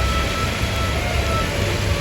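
A bus's engine running with a steady low rumble and traffic noise, with a few faint held notes changing pitch over the top.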